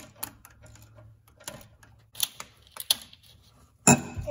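Scattered sharp metallic clicks of a ratchet wrench and O2 sensor socket turning out an oxygen sensor, with one louder click near the end.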